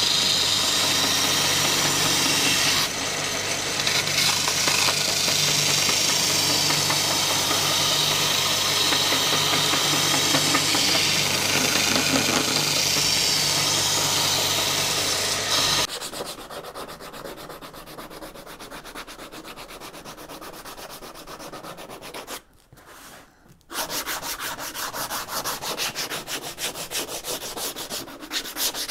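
Bench belt sander running with the edge of a plywood board pressed against the belt, grinding it to shape. About sixteen seconds in this gives way to quieter, rhythmic hand-sanding strokes along the board's edge, with a brief pause partway.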